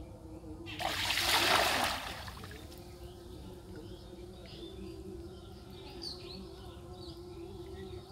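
A cast net landing on a pond and splashing into the water for about a second and a half, about a second in, loudest at its middle. Afterwards a few short bird chirps over a steady outdoor background.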